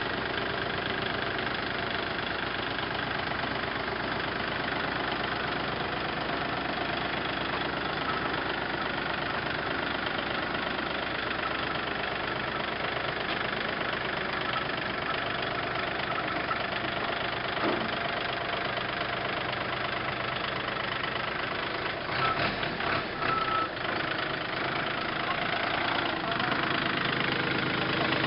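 Kubota L4018 tractor's three-cylinder diesel engine running steadily at idle, with a short uneven patch about three-quarters of the way through.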